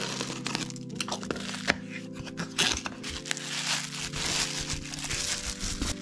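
Bubble wrap and plastic packaging crinkling and tearing as a small parcel is pulled open by hand, in irregular rustles and crackling clicks, over background music.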